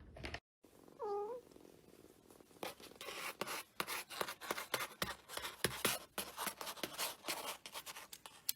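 A cat's short meow about a second in, then a long run of quick, irregular scratchy clicks and rustles.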